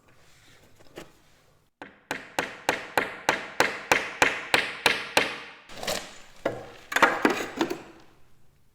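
A fast, even run of sharp knocks on wood, about four a second, like a hammer tapping, starting about two seconds in. It is followed by a rougher, less regular stretch of knocking and clattering.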